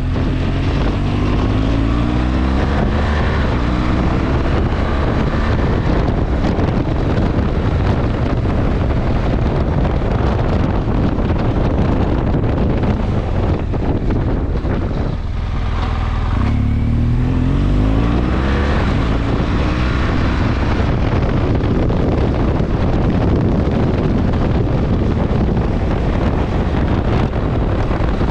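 BMW R1200GS Adventure's flat-twin boxer engine running under way, with wind buffeting the microphone. The engine note rises through the gears near the start, drops away briefly about halfway through as the bike slows, then rises again as it pulls away.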